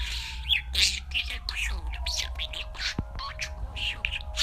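Budgerigars chattering in a quick run of short chirps and warbles, over a steady low hum.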